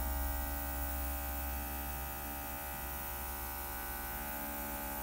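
Small cordless airbrush compressor running under load with a steady motor hum, with air hissing out through the airbrush while its trigger is held down. The sound gets a little quieter about a second and a half in.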